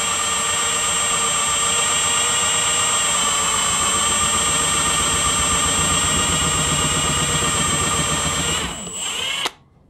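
Milwaukee Fuel cordless drill running steadily under heavy pressure, its 3-in-1 countersink bit with depth stop barely cutting into the end grain of a wood block because the bit is dull. It slows about nine seconds in and stops suddenly just before the end.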